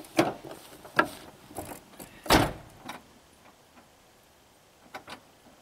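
Pickup truck door clunking open and being handled, then shut with a heavy thump about two seconds in. Two faint clicks follow near the end.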